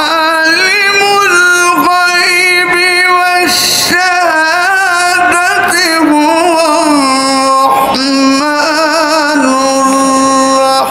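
A qari's melodic Quran recitation in Arabic, a man's voice holding long, ornamented notes into a microphone, with brief pauses for breath. The pitch settles lower in the second half.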